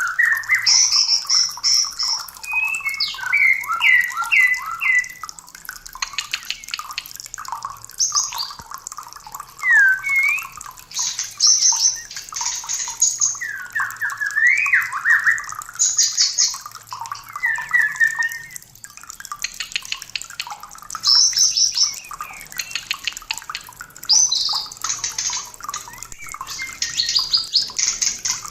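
White-rumped shama (murai batu) in mating condition singing a continuous, varied run of short whistled phrases, rising and falling glides and rapid repeated notes. This is the excited courtship song that keepers play as a lure to stir other shamas into song.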